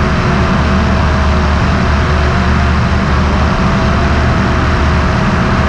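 Apollo Fox ultralight aircraft in cruise flight: the steady drone of its engine and propeller, with airflow rushing over a camera mounted outside on the wing.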